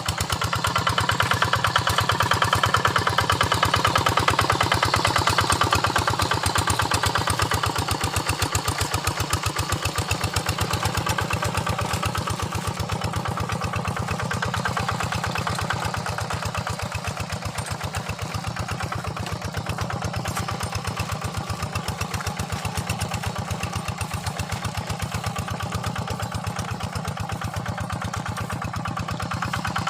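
Single-cylinder diesel engine of a Quick Impala two-wheel hand tractor running steadily under load while working a wet paddy field, with rapid, even firing pulses. It is a little louder for the first ten seconds or so, then eases slightly.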